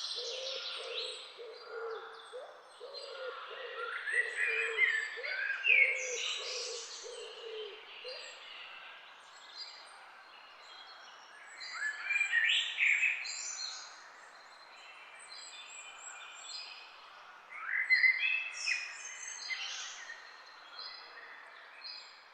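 Several wild birds chirping and singing, with quick trills and high chirps coming in bursts a few times. Under them for the first eight seconds or so, a low call repeats about twice a second.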